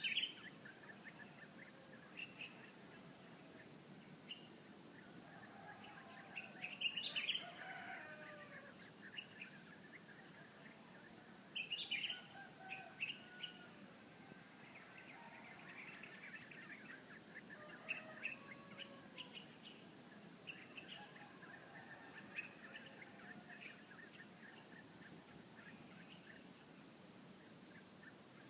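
Birds chirping in scattered short calls every few seconds over a steady high-pitched drone of insects.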